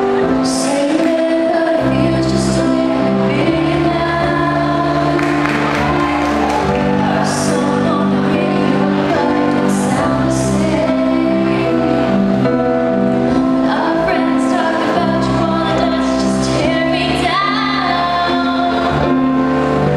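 A girl singing an English song solo into a handheld microphone over instrumental backing music.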